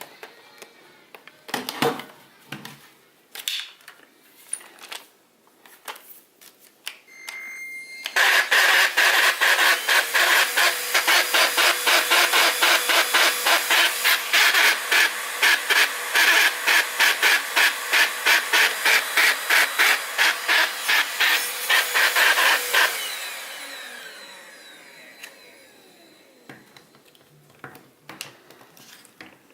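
Dibea C17 cordless vacuum cleaner: a few clicks and knocks of handling, then the motor starts about eight seconds in and runs with an even, rapid pulsing rattle of roughly two to three beats a second, the rattling fault in the machine. About fifteen seconds later it is switched off and winds down over a few seconds.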